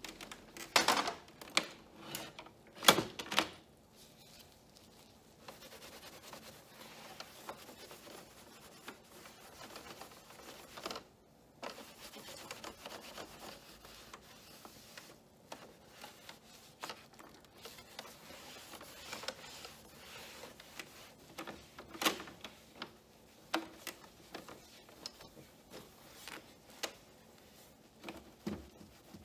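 Cloth wiping and rubbing over the plastic and glass of an all-in-one printer, with irregular clicks and knocks as its plastic parts are handled. The loudest knocks come about a second in and at about three seconds, with another sharp click past the two-thirds mark.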